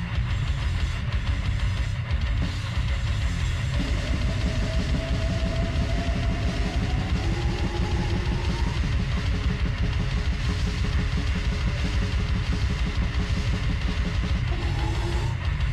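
Death metal music with fast, dense kick drumming and cymbals under distorted guitars. A held note slides slowly upward about a quarter of the way in.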